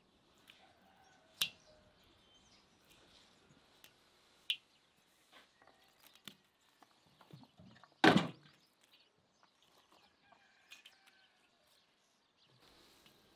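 Raw fat pieces and sliced onion dropped by hand into a cast-iron cauldron: scattered light taps and clicks, with one louder thump about eight seconds in.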